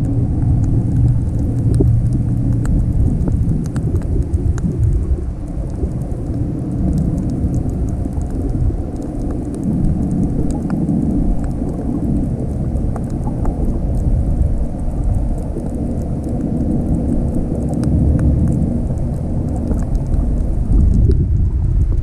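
Underwater sound picked up by a snorkeler's camera in its waterproof housing: a loud low rumble of moving water that swells and fades, with scattered faint crackling clicks.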